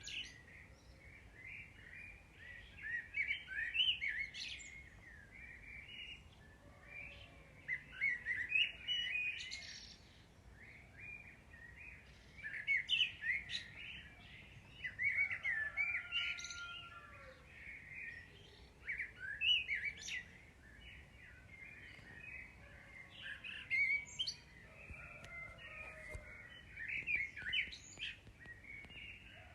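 Small songbirds chirping and twittering, in quick clusters of short high chirps that come every few seconds.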